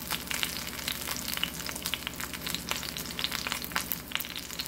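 Beef steak searing in hot bacon drippings in a cast iron skillet: a steady sizzle with a dense crackle of fat spitting.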